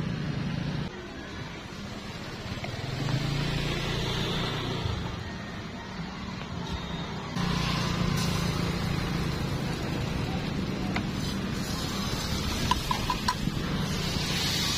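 Steady street traffic noise from passing motorbikes and cars, with a few quick clinks of metal on a frying pan near the end.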